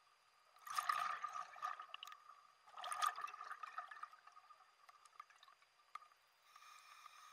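Scuba diver breathing through a regulator underwater: two gurgling bursts of exhaled bubbles, about a second in and about three seconds in, then a drawn breath through the regulator with a faint steady whistle near the end.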